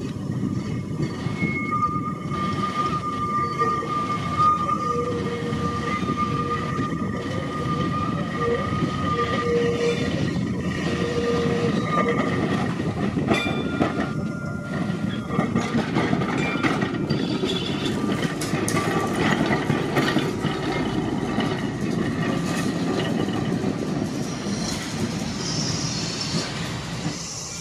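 Electric tram running on rails: a steady rumble with scattered clicks from the wheels, and a steady high whine held for several seconds in the first half.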